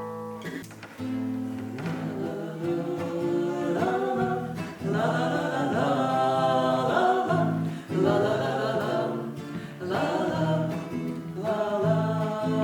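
Acoustic guitar playing with voices singing a wordless melody, as in a bard song's instrumental passage.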